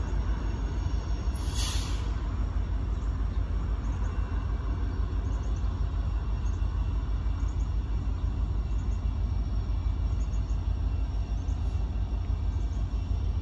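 Steady low rumble of a distant Union Pacific diesel locomotive approaching the crossing at the head of a gravel train, with a brief burst of noise about two seconds in.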